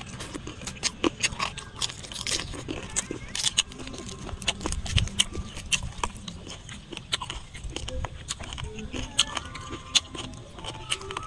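Close-miked eating sounds: crisp lettuce leaves crackling as they are torn and folded by hand, along with chewing. The sound is a steady run of sharp crunches and clicks.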